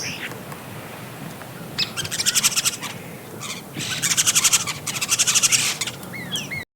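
Small birds singing in quick runs of high, rapid chirps, with a few short rising and falling whistles near the end, over a steady rush of water. The sound cuts off suddenly just before the end.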